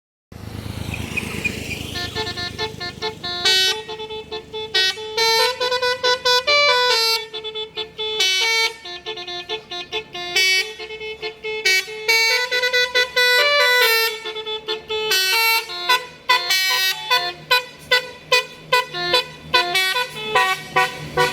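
Tour bus telolet horn playing a tune of stepping multi-tone air-horn notes, starting about two seconds in. Near the end the notes come as short toots, about two a second.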